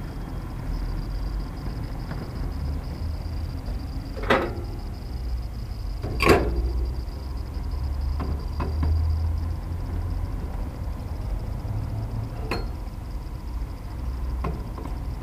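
Two sharp knocks about four and six seconds in, the second the louder, then a few lighter clicks, over a low steady rumble.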